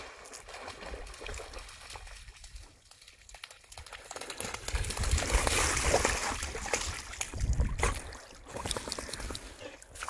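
Water splashing as a Border Collie puppy moves through a shallow river, loudest from about halfway through as the dog splashes right next to the microphone.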